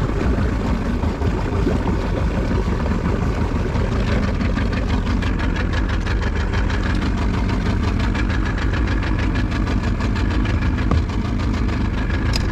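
Bass boat's outboard motor running steadily at slow speed, under load while towing a disabled boat back in.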